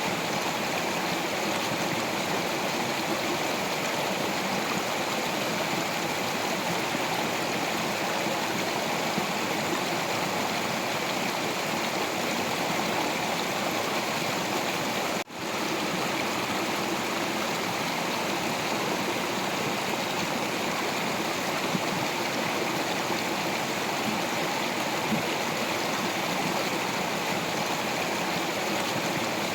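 Stream water flowing over rocks in a steady, even rush, with a brief dropout about halfway through.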